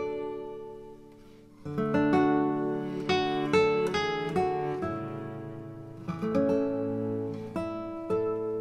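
Background music of a guitar, with plucked notes and strummed chords that ring and die away.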